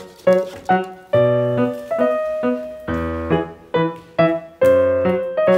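Background piano music: a run of struck chords, about two a second, each ringing and fading before the next.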